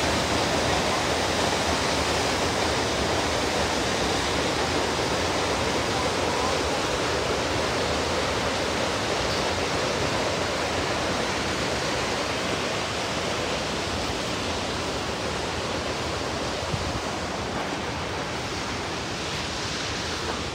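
Steady rush of water from a waterfall, slowly getting fainter.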